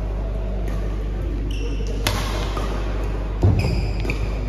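Badminton doubles rally: sharp racket hits on the shuttlecock and short squeaks of shoes on the court, with a heavy thump about three and a half seconds in. A steady low hum runs underneath.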